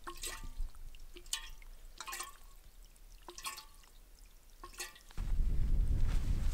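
Liquid being poured through a narrow nozzle into a titanium bottle, glugging and dripping in separate gulps about once a second. A little over five seconds in it gives way to steady wind buffeting the microphone.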